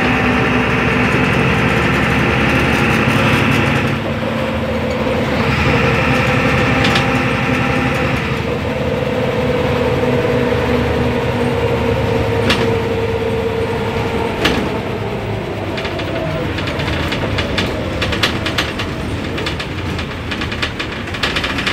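Cabin sound of a 2001 MAN NL222 city bus under way: its six-cylinder diesel and drivetrain running with steady tones over road noise, the pitch shifting about four and eight seconds in as it changes speed. In the last few seconds, light clicking and rattling from the bus body.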